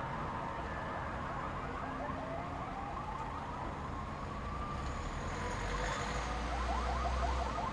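Emergency vehicle siren wailing, slowly rising and falling in pitch, then switching to a rapid yelp near the end, with a low rumble underneath in the second half.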